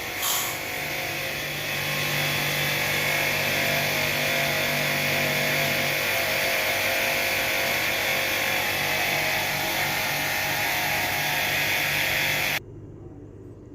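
High-pressure water jet spraying an air handling unit's coil fins: a loud, steady hiss with a steady hum from the washer underneath. It cuts off suddenly near the end.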